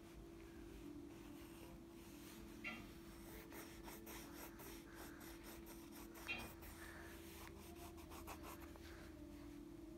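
Faint scratching of a colour pencil scribbling back and forth on paper, over a steady low hum.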